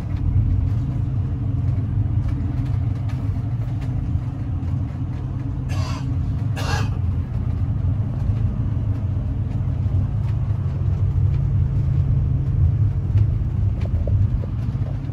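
Steady low engine and road rumble of a moving vehicle, heard from inside the cabin. Two short, sharp noises come about a second apart roughly six seconds in.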